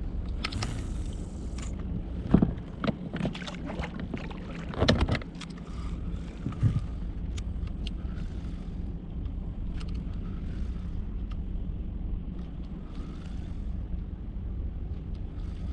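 Clicks and knocks of fishing tackle being handled in a small boat, loudest about two seconds and five seconds in, over a steady low rumble.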